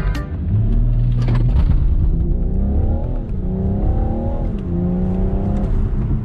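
BMW 640d's twin-turbo diesel engine pulling hard from a launch-control start, heard inside the cabin. Its pitch climbs, drops about three seconds in and again a second and a half later as the 8-speed automatic shifts up, then holds steady.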